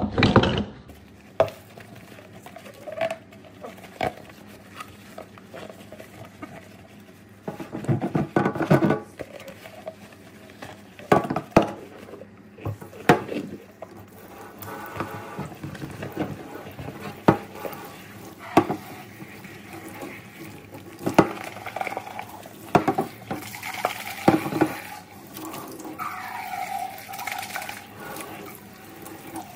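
A clear plastic cup being washed in a stainless steel sink: irregular knocks and clatters of plastic on steel, with scrubbing and sloshing. Near the end the tap runs water over the cup.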